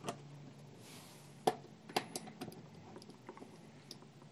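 A few short, sharp clicks and taps of multimeter test probes and their leads being fitted to screw terminal blocks, the loudest about one and a half seconds in, with a brief faint rustle.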